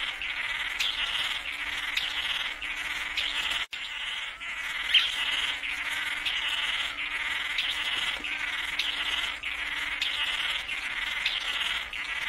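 Male Chiroxiphia manakins giving buzzy, nasal display calls, repeated over and over in a steady rhythm, as during their cooperative courtship dance for a female.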